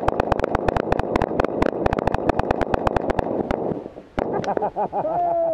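Rapid fire from three Beretta M9 9mm pistols shooting at once: dozens of shots overlapping for about three and a half seconds, then stopping. Voices call out near the end.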